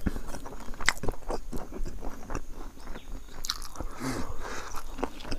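A person chewing a mouthful of rice and pickle close to the microphone, with a string of small mouth clicks and a louder rustly chewing patch about four seconds in.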